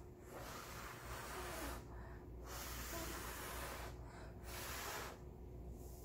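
A person blowing hard three times in long puffs of breath to push thinned acrylic paint across a canvas. The first two puffs are long and the last is shorter.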